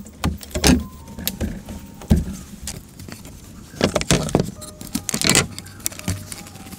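Bamboo floor slats knocking and scraping as hands twist thin ties around them to bind them down: a string of irregular sharp clicks, rattles and scrapes. The loudest clusters come about four and five seconds in.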